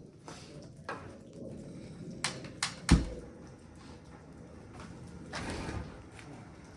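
A few sharp clicks and knocks, the loudest a thud about three seconds in, then a short rustle, typical of things being handled and set down in a small room or vehicle.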